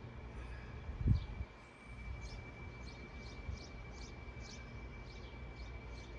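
Small birds chirping repeatedly over a low rumble of wind on the microphone, with a dull thump about a second in.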